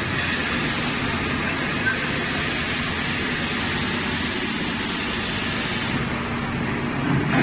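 Automatic roof tile making machine running with a steady mechanical noise and a hiss above it, rising briefly in a louder surge at the very end.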